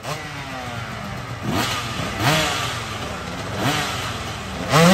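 Dirt bike engine revving hard in repeated bursts, its pitch climbing and dropping back about four times.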